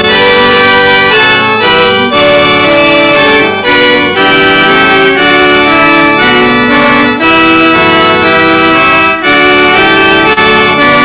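Recorded hymn accompaniment played back over the church's sound system: loud, sustained chords that change roughly every second in a slow hymn rhythm.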